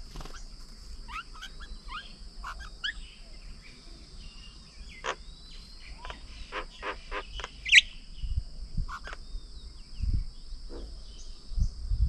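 Several small birds chirping and calling, over a steady high insect drone. One loud, sharp call stands out about eight seconds in, and a few low thumps come near the end.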